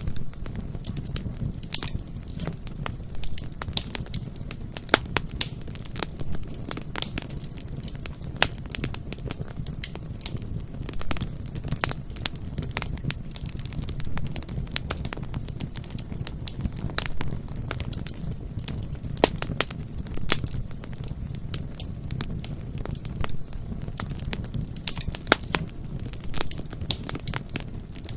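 Bonfire burning, with frequent irregular sharp crackles and pops of the burning wood over a steady low rumble of the flames.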